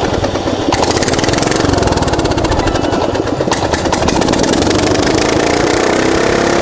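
Riding lawn mower's small engine running steadily, having just caught after a second pull at starting it.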